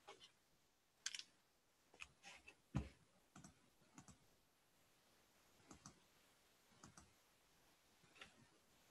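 Near silence broken by faint, irregular clicks, roughly one a second.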